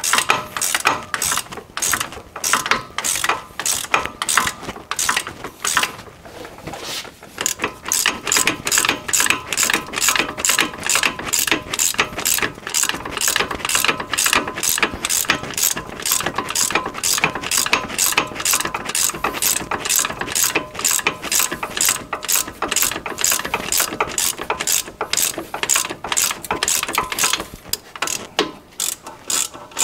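Hand ratchet clicking steadily as the four unit-bearing hub nuts are run down and tightened, about three clicks a second with a couple of short pauses.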